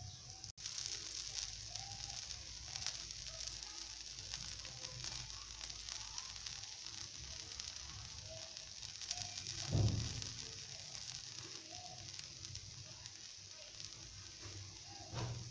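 Dosa frying on a hot tawa: a steady sizzle with fine crackling. A dull thump about ten seconds in, and a smaller one near the end.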